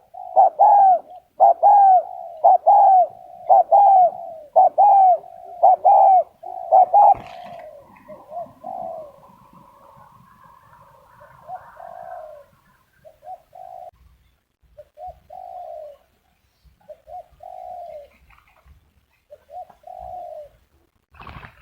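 Zebra dove singing a run of loud, evenly spaced coos, about one and a half a second, for the first seven seconds. After that it gives fainter, more scattered notes.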